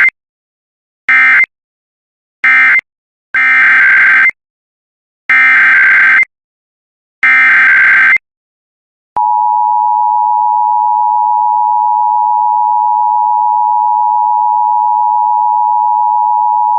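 Emergency Alert System digital data bursts: three short screeching bursts end the previous message, then three longer bursts form the SAME header of the next alert. About 9 s in, the steady two-tone EAS attention signal (853 and 960 Hz) starts and holds for about 8 seconds, announcing a required monthly test.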